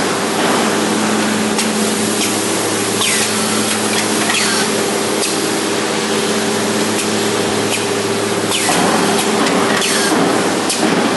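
Automatic angle drilling machine running: a steady motor hum under a constant hiss, with short sharp ticks and brief high squeals every second or so.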